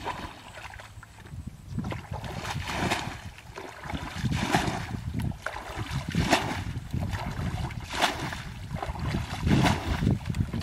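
Muddy ditch water being bailed out with a plastic bucket: a splash and pour about every one and a half to two seconds as each bucketful is scooped and thrown.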